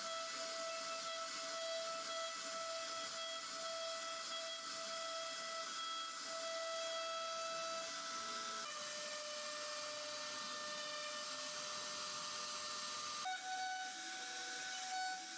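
A small electric motor or power tool running steadily: a whine over a hiss. The pitch drops suddenly about nine seconds in and changes again about thirteen seconds in.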